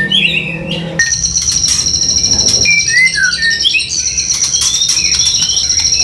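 Caged songbirds chirping and calling in short gliding notes, over a steady, shrill high-pitched trill that starts about a second in and breaks off briefly near the middle.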